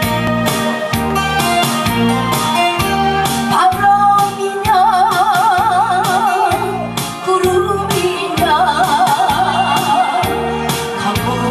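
A woman singing a Korean trot song into a microphone over a recorded backing track with a steady beat, played through PA speakers. The track plays alone at first; her voice, with a wide vibrato, comes in about halfway.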